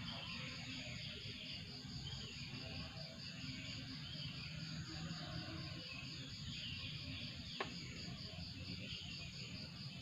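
Insects trilling in a steady, evenly pulsing chorus, with short bird calls repeating over it and a low background rumble. A single sharp click comes about seven and a half seconds in.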